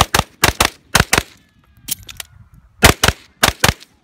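9mm pistol-caliber carbine firing fast pairs of shots: six shots in three quick pairs, then a pause of about a second and a half with faint clicks of a magazine change, then more pairs of shots.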